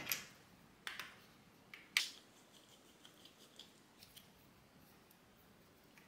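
A few sharp clicks from a smartphone clamp adapter being handled, a close pair about a second in and the loudest click about two seconds in, followed by scattered faint ticks.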